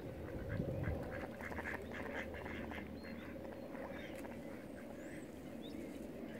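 Mallard ducks quacking: a quick run of short calls in the first half, over a low steady rumble.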